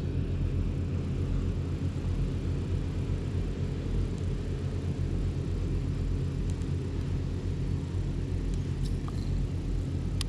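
Steady low hum of a motor or machine running, with a few faint ticks near the end.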